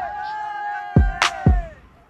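Background music in a hip-hop style: a held melodic note that slides downward and fades near the end, with two deep drum hits about a second in.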